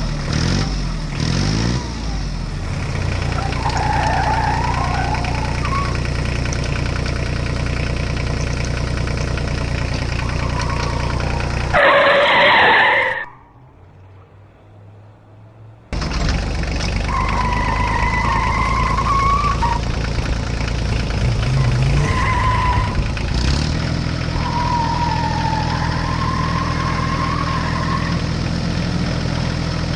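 A steady engine hum, like a heavy engine idling, with a wavering higher whine that comes and goes. A loud short burst about twelve seconds in, then the hum drops away for about three seconds before starting again.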